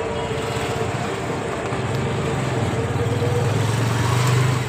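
Ride in an auto-rickshaw heard from the passenger seat: a steady low motor hum and road noise, growing a little louder about two seconds in.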